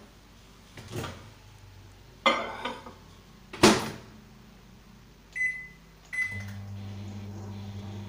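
A glass bowl goes into a Samsung microwave oven with a knock and a clatter, and the door shuts with a loud bang. Two keypad beeps follow, then the oven starts running with a steady low hum on a half-minute heating cycle.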